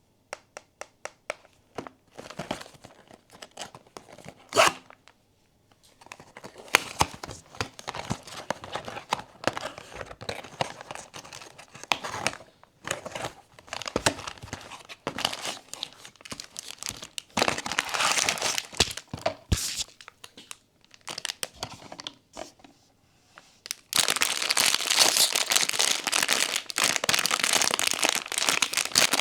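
Blind-box packaging being handled and opened by hand: a few light clicks and taps at first, then irregular crinkling and tearing of wrapping. The crinkling grows dense and continuous near the end.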